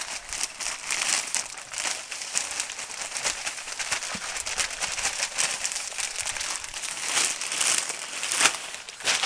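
Plastic bag of mushroom compost crinkling and rustling as it is tipped and shaken out, compost sliding into a plastic tub. There is a louder crinkle near the end as the emptied bag is handled.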